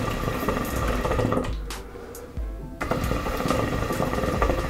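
Water gurgling and bubbling in the flask of a small transparent tabletop hookah as smoke is drawn through it, in two draws with a short break about two seconds in. The draw is still very light.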